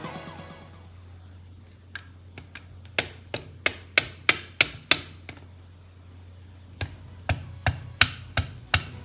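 Sharp clicks and knocks, about three a second, in two runs with a short pause between, as gloved hands press down on and handle a 1:18 scale diecast metal Shelby Cobra 427 model car.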